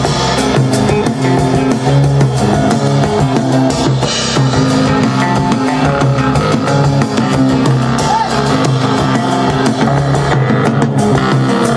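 Rock music with drum kit and guitar playing continuously at a steady loud level.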